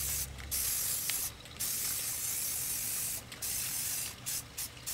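Aerosol can of gray spray paint hissing in long bursts with short pauses between them, then a few quick short spurts near the end.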